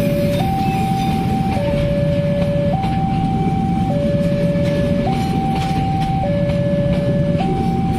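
Railway level-crossing warning alarm sounding a steady electronic two-tone signal, a higher then a lower tone, each held just over a second, repeating. Under it is the loud, even rumble of passenger coaches rolling past on the rails.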